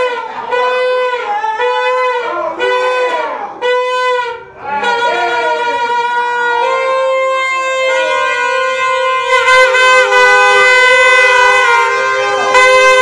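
Plastic stadium horns (cornetas) blown hard by fans: a run of short blasts about half a second each that sag in pitch at their ends, then long held notes, with two horns sounding together at different pitches over the last few seconds, louder.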